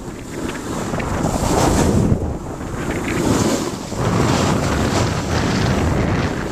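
Wind rushing over a moving camera's microphone during a fast snowboard descent, with the hiss of board edges carving across packed snow, the noise swelling and easing in surges as the turns come and go.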